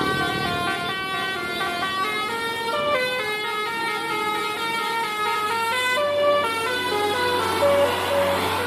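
Bus 'telolet basuri' musical horn playing a tune: a run of held notes stepping up and down in pitch, with a low steady hum joining about halfway through.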